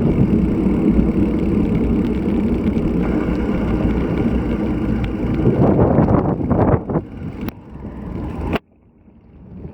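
Strong wind buffeting an action camera's microphone, a loud low rumble that thins out, then cuts off abruptly near the end before swelling back.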